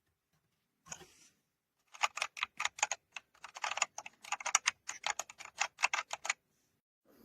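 Typing on a Dierya T68SE 60% mechanical keyboard with red linear switches: a single keystroke about a second in, then a fast run of key clacks for about four seconds that stops shortly before the end.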